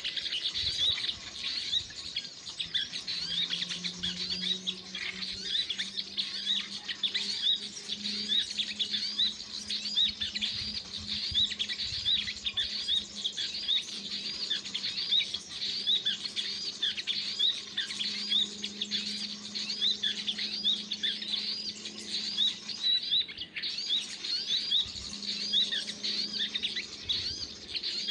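Small songbirds giving a rapid, steady series of high chirps, about two a second. A faint low steady hum runs underneath from about three seconds in.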